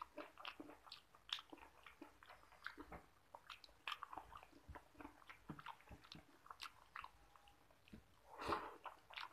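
Faint wet clicks and squelches of fingers mixing rice into egg curry on a plate. Near the end comes a louder burst of mouth sounds as a handful is eaten.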